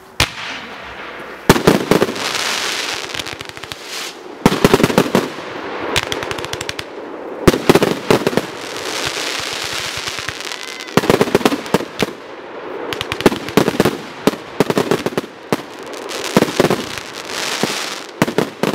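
Consumer fireworks batteries firing in volleys every two to three seconds. Each volley is a quick run of sharp bangs followed by a spread of crackling.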